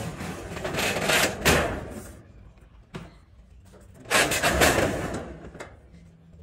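Galvanized corrugated steel roofing sheets being handled and shifted on a roof frame: scraping, rattling metal noise in two bursts, the second one louder, with a single sharp knock between them.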